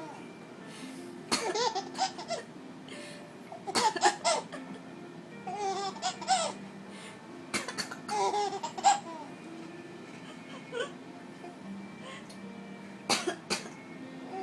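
A mother's pretend coughs, each answered by a baby's bursts of laughter, about four times over. Faint background music with held low tones runs underneath.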